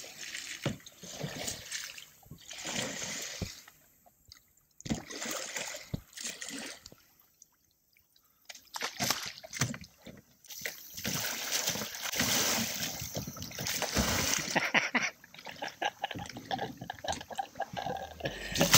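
Water splashing and sloshing in irregular bursts around a Pelican Catch Mode 110 sit-on-top fishing kayak as its paddler splashes the paddle, then rocks the boat over until it capsizes and he goes into the water. There is a short lull a little under halfway through, and the splashing is densest in the second half.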